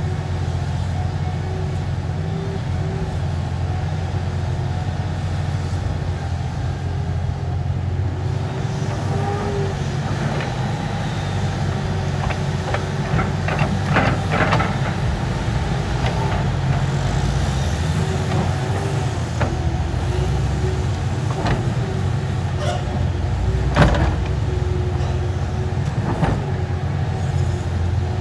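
Liebherr 964 hydraulic excavator running steadily, its diesel engine humming with a steady whine over it. Near the middle comes a cluster of knocks and clatter as the bucket dumps earth and rock into a dump truck's steel bed, and more sharp knocks follow later, the loudest a few seconds before the end.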